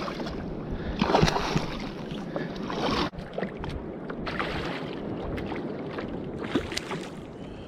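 Water slapping against a kayak hull, with wind on the microphone and a few brief knocks.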